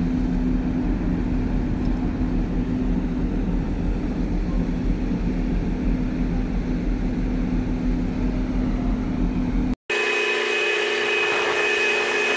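Steady low machinery hum of a ferry, with a deep rumble and a couple of steady low tones. About ten seconds in it cuts off abruptly and gives way to a higher-pitched steady machine whine.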